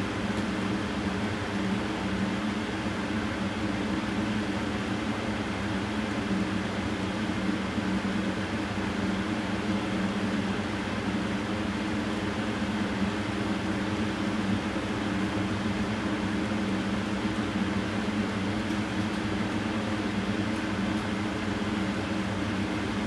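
Steady machine hum: a low drone with a hiss over it, unchanging throughout.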